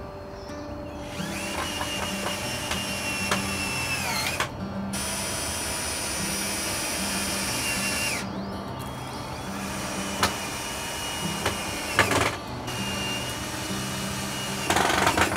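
Cordless drill-driver running in four bursts of about three seconds each, its motor whine winding down at the end of each burst, fastening a wooden crossbar to painted slats. A quick rattle of clicks comes near the end.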